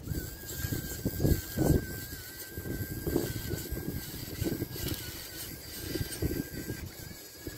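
Small home-built wheeled robot vehicle driving over rough concrete: a faint steady high whine under irregular low rumbling.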